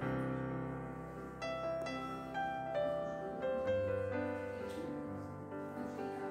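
Background piano music, slow notes struck one after another.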